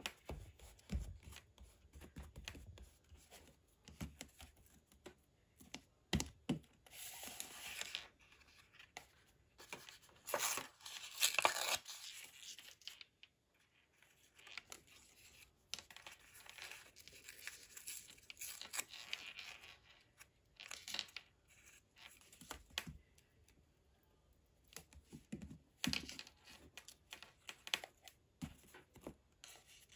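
Patterned craft paper being torn by hand in irregular rips, the loudest about a third of the way in, with rustling and small clicks as the scraps are handled and pressed onto a book page.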